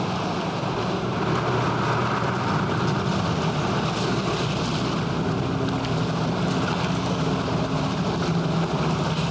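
A steady low motor hum over a constant rushing noise, the hum growing stronger about six seconds in.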